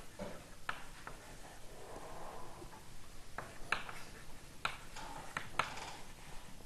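Chalk writing on a blackboard: faint, irregular taps and short scrapes.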